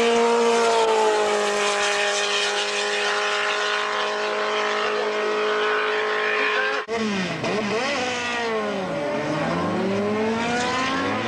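A Simca Rallye III race car's engine is held at high revs, its note dipping slightly about a second in and then staying steady as the car climbs away. About seven seconds in there is an abrupt cut to a Simca Rallye II, whose engine revs down and up again repeatedly.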